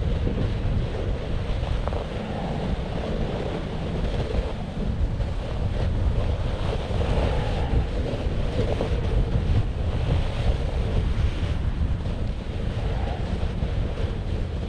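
Wind buffeting the microphone in a steady rumble, with a hiss that swells and fades as the camera slides downhill over snow.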